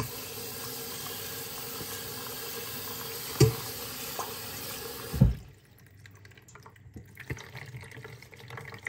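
Kitchen tap running a steady stream of water onto raw minced meat in a cloth-lined strainer in a steel sink, the second rinse to wash out blood. Two knocks come during it, the second just as the water cuts off about five seconds in. After that there are only faint handling sounds as the wet mince is pressed in the cloth.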